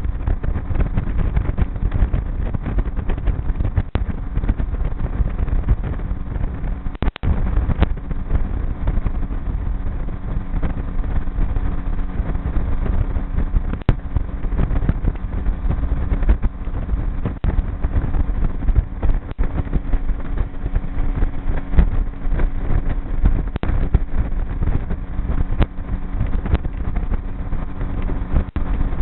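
Outboard motor running steadily, driving a small aluminium boat (a G3 V167) along at speed, with a constant engine drone and wind buffeting the microphone.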